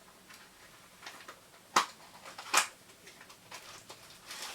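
Small objects and packaging being handled: two sharp clicks about a second apart, then faint rustling.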